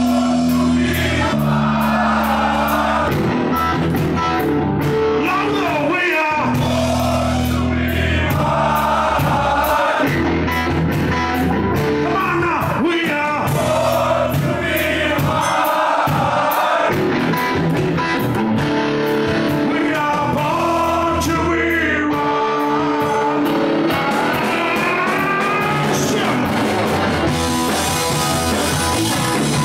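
Live rock band playing: electric guitar, electric bass and drum kit, with a male lead voice singing over them.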